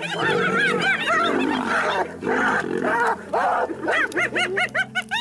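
Wild animals calling: a jumble of overlapping yelps and snarls, then near the end a quick run of short rising-and-falling calls, with steady background music underneath.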